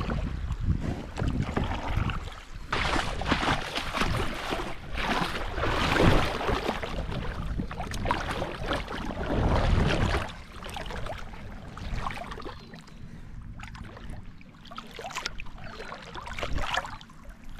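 Water splashing and rushing around a kayak as it is paddled on a river, in uneven surges, louder for the first ten seconds or so and quieter after.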